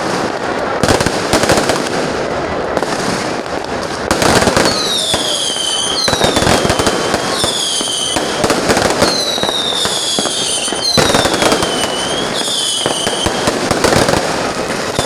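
Fireworks going off close by, with a dense, continuous crackle of exploding sparks. From about four seconds in, shrill whistles join it, each falling in pitch, about once a second.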